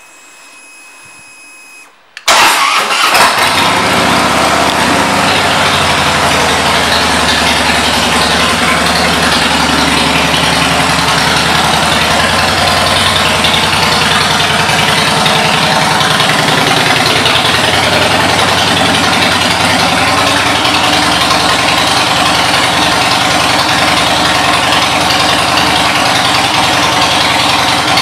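Harley-Davidson Fat Boy Lo V-twin with Vance & Hines exhaust pipes starting: it catches suddenly about two seconds in and settles into a loud, steady idle.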